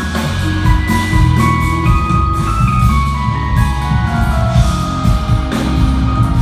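Jazz-fusion band playing live with keyboards, electric guitar, bass and drum kit, heavy in the low end. About halfway through, a high melodic line steps down in pitch over a couple of seconds.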